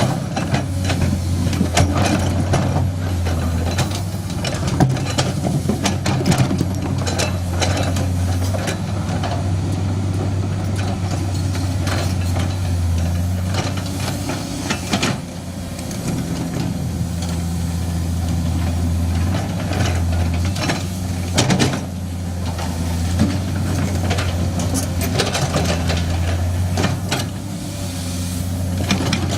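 Hydraulic excavator's diesel engine running steadily, with frequent sharp knocks and clatters as it works rock and earth.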